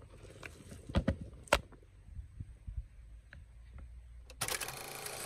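Soft squelches and a few light knocks, strongest about a second in, from hands kneading a minced chicken mixture in a wooden bowl. Near the end, water starts pouring steadily into a pot of rice.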